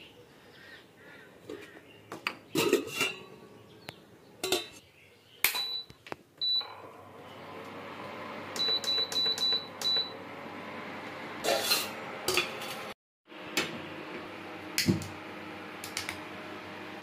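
Steel pots and utensils clinking and knocking, and the touch-button control panel of a Prestige induction cooktop beeping: single beeps, then a quick run of about six beeps as its buttons are pressed.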